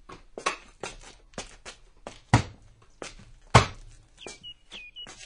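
Sound-effect footsteps walking at about two to three steps a second, some steps louder than others. A bird starts chirping near the end, short calls that slide downward.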